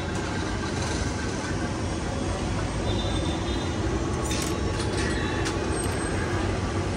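Steady rumble of street traffic, with a few light clicks about four and a half seconds in.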